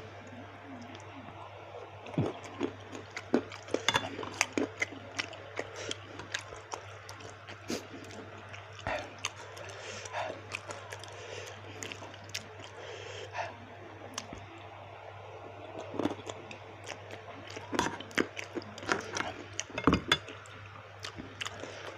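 Close-up eating sounds: chewing of baso aci (tapioca meatballs), with irregular sharp clicks and clinks of a utensil against the bowl.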